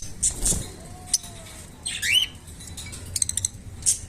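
Lovebirds chirping and squawking: short sharp chirps, a squawk that bends in pitch about two seconds in, and a quick run of rapid chirps a little after three seconds.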